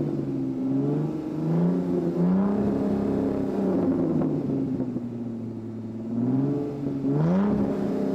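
Supercar engine being revved while stationary. The revs climb about a second and a half in, hold, then sink slowly back toward idle, before a quick sharp blip of the throttle near the end.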